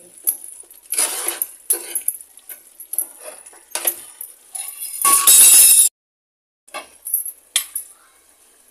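Metal spatula stirring thick keema masala in a frying pan, scraping and clinking against the pan, with a louder stretch of scraping about five seconds in and a few sharp clinks near the end.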